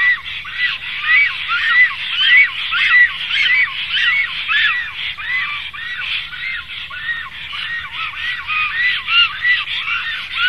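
Birds calling: a dense, unbroken chorus of short calls, each rising then falling in pitch, several a second and overlapping at different pitches.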